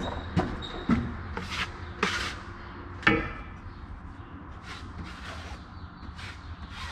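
Steel taping knife clacking and scraping against the edge of a stainless-steel mud pan, about five sharp strokes in the first three seconds, the last with a brief metallic ring, then quieter scraping, over a steady low hum.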